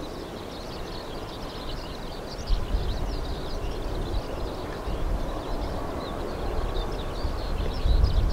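Airbus A320-211's CFM56 jet engines on final approach, a low rumble that grows louder from about two and a half seconds in as the airliner nears, with small birds chirping throughout.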